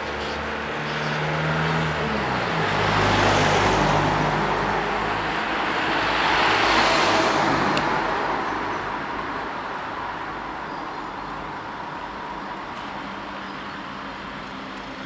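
Road traffic at a junction: a vehicle's engine hum drops in pitch about two seconds in, then two vehicles pass close by, each rising and fading, loudest about three and seven seconds in, before the traffic noise settles back.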